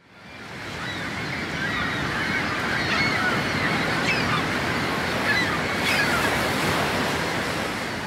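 Sea surf washing steadily, fading in over the first second, with birds calling now and then over it.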